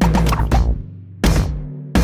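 Music: heavy drum hits over low held bass notes, one at the start, one about a second and a quarter in and one just before the end, each dying away.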